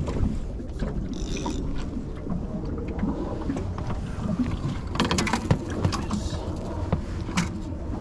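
Steady low rumble of wind and water around a small fishing boat. A brief hiss comes about a second in, a cluster of sharp clicks and knocks around the middle, and another knock near the end, from gear being handled in the boat.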